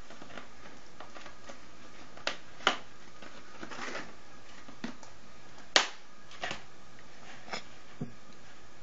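A light plastic tray knocked and shoved about on a wooden floor by playing kittens. It makes a scatter of sharp, irregular clacks, the loudest about two-thirds of the way through.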